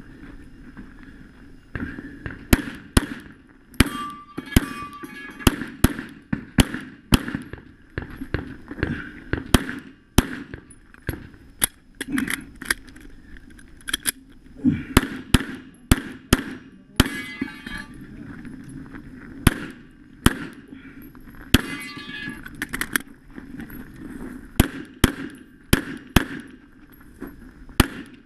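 Handgun fired rapidly in a practical pistol stage: sharp shots in pairs and short strings, with brief pauses between strings, a few followed by a short ringing.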